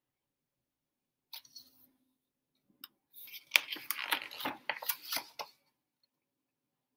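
Picture-book pages being turned by hand: a soft tap, then paper rustling and crinkling with sharp crackles for a couple of seconds.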